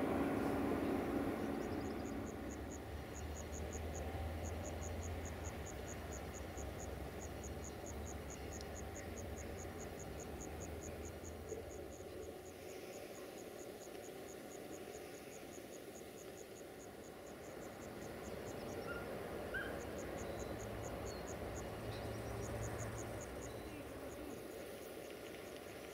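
A cricket chirping in long runs of rapid, evenly spaced high pulses, stopping for a few seconds in the second half before starting again. The noise of a passing train fades away over the first couple of seconds, and a faint low hum comes and goes.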